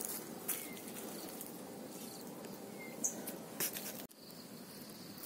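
Quiet outdoor ambience with a few brief high bird chirps and soft rustles of footsteps on dry leaf litter.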